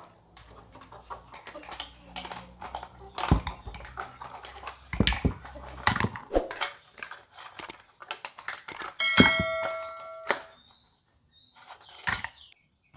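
Cooked mussel shells clattering as they are scraped and tipped out of a metal wok with a wooden spatula, a string of clicks and knocks. About nine seconds in, the wok rings for about a second like a struck pan.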